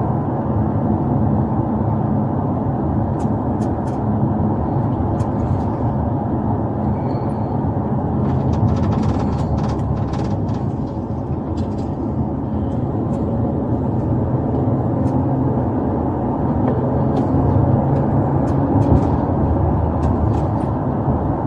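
Steady road and engine noise inside a police patrol car as it drives, with a few faint ticks.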